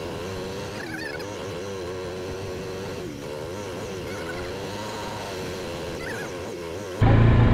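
Motorcycle engine running as it climbs a dirt road, its pitch wavering up and down, with two faint chirps. Near the end it suddenly turns much louder, with a low rumble.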